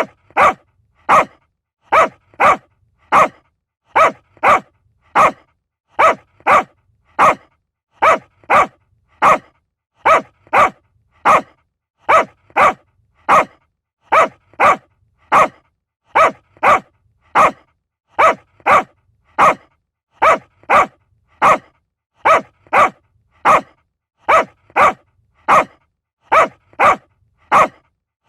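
Small dog barking over and over in short, sharp, high barks, about one to two a second, often in quick pairs, with no let-up.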